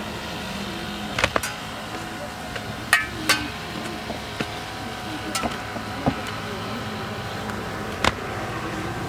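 Swords striking small metal shields in a sword-and-shield martial-arts display: about seven sharp metallic clacks at irregular intervals, the loudest pair around three seconds in, some ringing briefly. A steady hum lies underneath.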